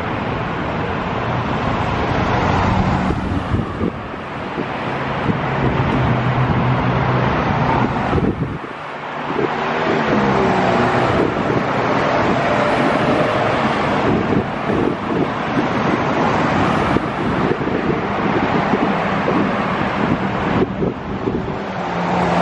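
Steady city street traffic: cars and trucks driving past with engine hum and tyre noise, easing briefly about nine seconds in before building again.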